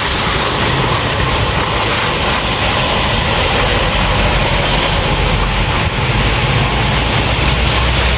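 Steady heavy rain with a deep low rumble underneath it.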